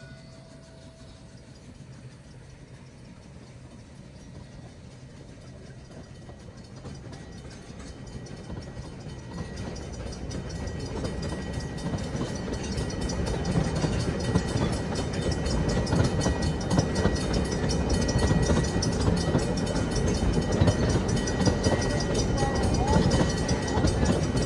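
Narrow-gauge train approaching, its rumble and wheel clatter growing steadily louder over the first half and then staying loud, with a thin steady high whine from about ten seconds in.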